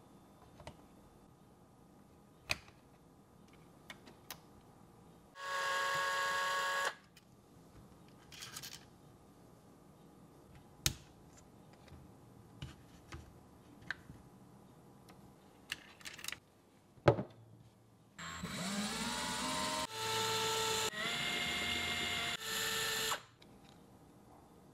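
Small electric power screwdriver running in short bursts, removing screws from a Traxxas TRX-4 plastic axle: one brief run about five seconds in, then about five seconds of runs near the end, the whine rising as it spins up. Light clicks of small plastic and metal parts being handled come in between, with a sharp click just before the long run.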